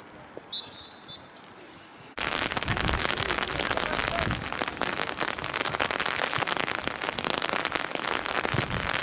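Rain falling, a dense crackle of many drops close to the microphone that starts abruptly about two seconds in. Before it, quiet open-air sound with one brief high whistle tone.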